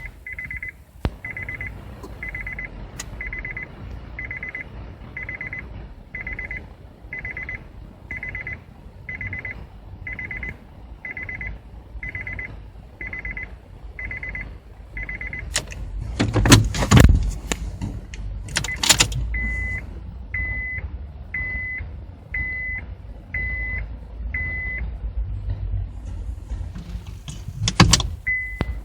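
Honda Freed's in-car warning chime sounding a two-note 'kin-kon' about once a second for roughly fifteen seconds. It is followed by a burst of clattering knocks, then a single-pitched beep repeating about once a second for about five seconds, and another sharp knock near the end.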